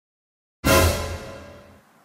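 Music: dead silence, then about half a second in a single loud musical hit rich in sustained tones that rings out and fades over about a second.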